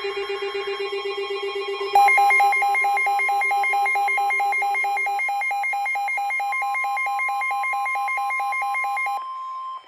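Several emergency weather-alert tones sounding over one another. A low, rapidly pulsing buzz stops about five seconds in. About two seconds in, a fast two-pitch warbling beep and a steady high alert tone start together. The beep cuts off just before the tone ends, near the end.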